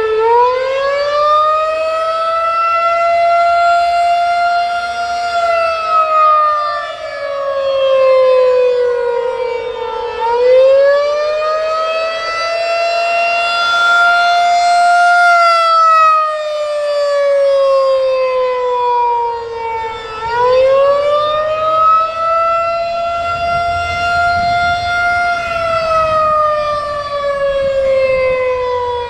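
Federal Signal 2001-SRN electromechanical rotating siren sounding the Attack signal: the pitch climbs quickly, holds for a few seconds, then winds down slowly as the motor is cut, starting over about ten and twenty seconds in. The loudness swells and dips as the rotating horn sweeps past.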